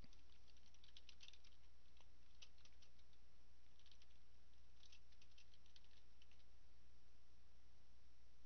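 Computer keyboard being typed on in short bursts of faint, quick key clicks, over a steady low hum.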